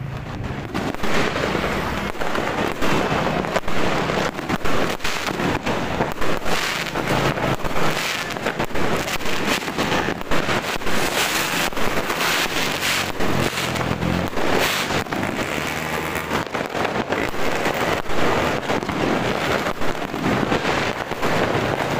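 Many fireworks and firecrackers going off at once in a continuous barrage of overlapping bangs and crackles, with a steady low hum underneath.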